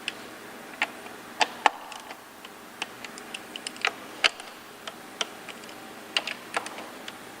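Irregular sharp clicks and taps of hand tools tightening the intake plenum bolts lightly into plastic, about a dozen to twenty small clicks spread unevenly.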